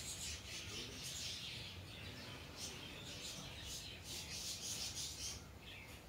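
Faint, high-pitched, scratchy bird chirping in repeated bursts, each with a rapid flutter.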